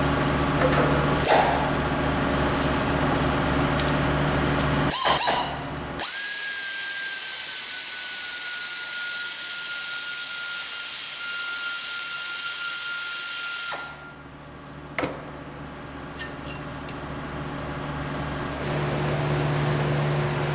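A loud, steady hiss of compressed air, with a faint whistle in it, starts about six seconds in and cuts off suddenly some seven seconds later. Before and after it a steady low machine hum runs, with a few sharp knocks.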